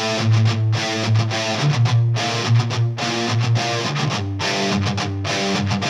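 Background rock music led by guitar, with a steady beat.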